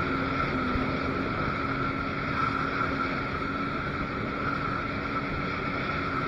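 Jet ski engine running at a steady pace while under way: a constant hum over an even rush of noise, with the pitch dipping slightly about half a second in.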